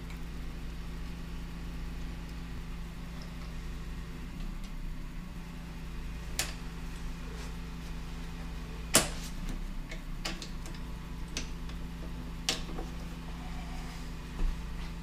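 A handful of short, sharp clicks and taps from hands working on the tilt-trim motor's wiring and fasteners, the loudest about nine seconds in, over a steady low hum.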